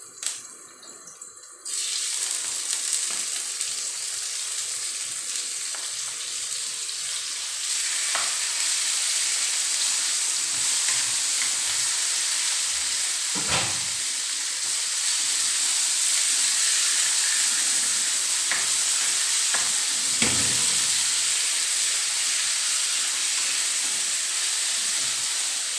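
Raw chicken pieces hit a hot wok of sautéed garlic and onion and start sizzling suddenly, about two seconds in. The steady frying sizzle grows louder a few seconds later, broken by a few knocks of the spatula against the wok as the chicken is stirred.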